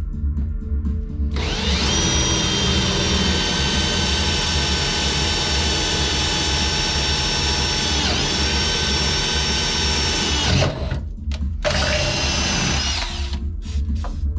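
Cordless drill boring a hole through an aluminium plate: it runs at a steady whine for about nine seconds, dips briefly in pitch as it bites about eight seconds in, stops, then runs again for about a second. A steady beat of background music runs underneath.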